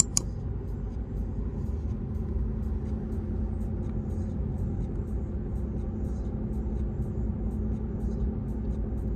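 Steady low rumble of a moving vehicle, with a faint steady hum.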